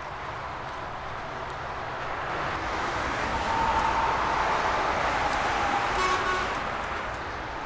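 Boeing 777-300ER's GE90 jet engines heard across the airfield as the airliner touches down and rolls out: the engine noise swells to its loudest after touchdown, then starts to fade. A short high tone sounds about six seconds in.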